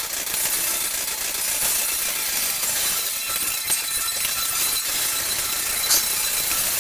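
Cable machine in use for single-arm triceps reps: the cable runs over its pulleys with a steady rasping hiss, and there are a few sharp clinks from the weight stack.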